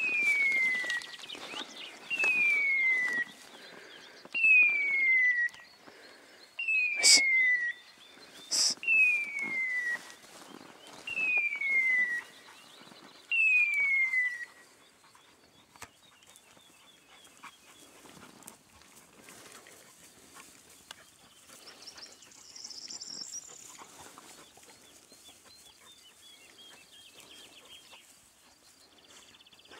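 Hunting-dog beeper collar in point mode sounding its hawk-scream signal: a descending whistle-like tone, about a second long, repeated seven times about every two seconds and then stopping about halfway through, which signals that the setter is on point. Two sharp knocks come near the middle of the series, and the later part holds quieter rustling of movement through tall grass.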